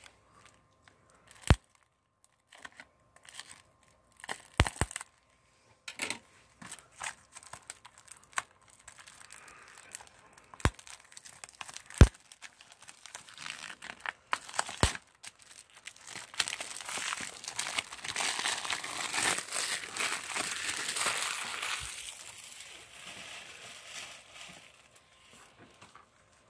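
Plastic shrink wrap being picked at, torn and peeled off a Blu-ray case: scattered sharp clicks and taps of fingernails and the plastic case, then a long stretch of crinkling and rustling in the second half that fades near the end.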